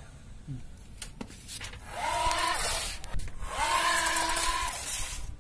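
Small DC motor spinning an air propeller in two short runs, a whirring hiss with a whine that rises as it spins up, holds, then falls as it slows.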